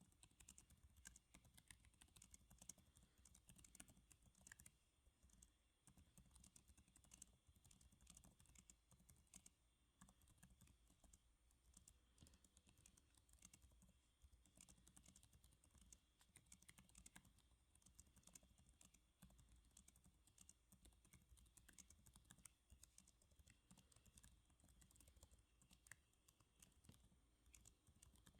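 Soft, continuous typing on a computer keyboard: quick, irregular key clicks with no pauses, recorded quietly.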